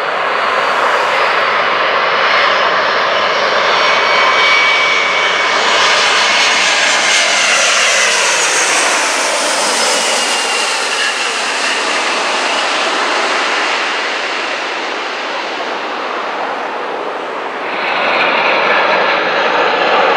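A McDonnell Douglas MD-11 cargo jet's three turbofan engines on final approach, swelling as it passes low overhead, with the engine whine falling in pitch as it goes by and then fading. Near the end the jet noise jumps abruptly louder and brighter.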